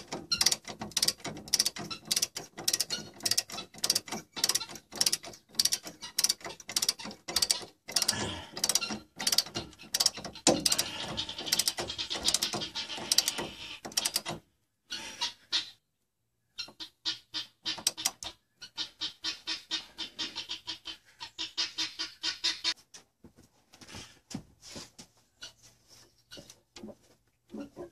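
Ratchet of a torque wrench clicking rapidly in runs as the handle is swung back and forth, tightening the radius-arm-to-chassis bush nut on a Land Rover Defender towards 190 Nm. The clicking stops for about two seconds a little past halfway, then resumes and thins out near the end.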